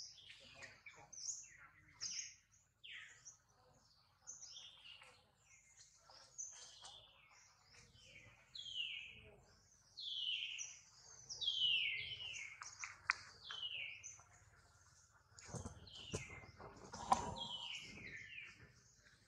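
Birds chirping in a steady run of short high calls, each sliding down in pitch, about one or two a second. A few sharp taps and some rustling come near the end.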